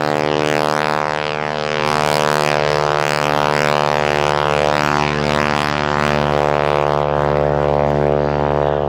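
A Stearman biplane's radial engine and propeller droning steadily and loud, close by, growing slightly louder about two seconds in.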